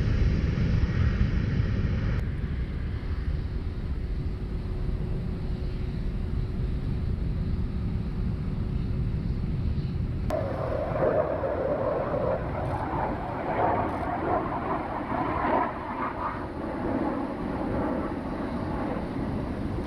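Jet aircraft engines: a KC-10 tanker's turbofans rumbling steadily with a faint whine as it takes off, then, after an abrupt change about ten seconds in, a more uneven, hissing jet noise from aircraft flying overhead.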